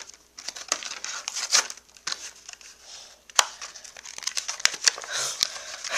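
Hand tearing and crinkling of Hot Wheels die-cast car packaging, a stiff clear plastic blister and its cardboard backing card, with irregular crackles and sharp plastic clicks. The blister is stubborn and the car won't come free.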